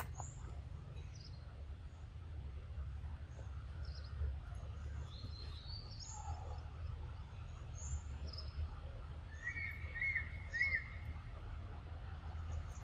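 Outdoor ambience: scattered faint, high bird chirps over a steady low rumble, with a quick run of three chirps about ten seconds in.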